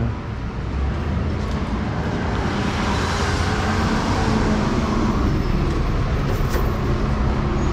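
Steady city street traffic noise, with a heavy vehicle's engine running at a steady low hum.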